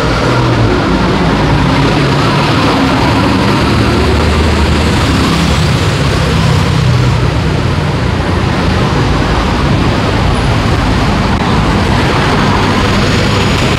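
Steady road traffic on a city street, with the low engine note of a passing bus and cars.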